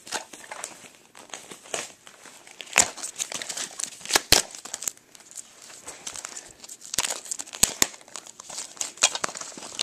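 Plastic packaging crinkling and crackling in irregular bursts as airsoft magazines are handled and unwrapped, with a few sharper snaps about three and four seconds in.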